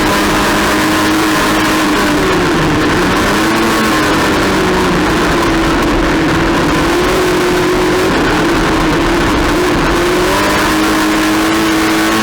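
Race car engine running hard, its note falling and climbing again several times, over a steady rushing noise.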